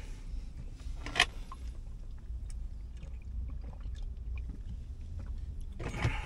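A drink bottle handled in a car cabin: a sharp click about a second in and a short rustle near the end, over a low steady rumble.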